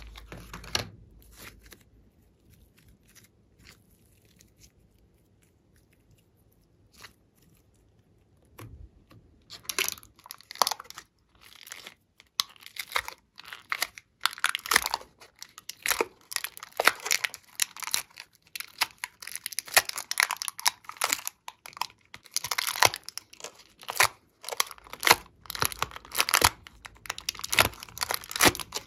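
Thin clear plastic mould tray crinkling and crackling as soft clay is pressed and pulled out of its cells by hand. It is a dense run of sharp crackles that starts about nine seconds in, after a nearly quiet stretch.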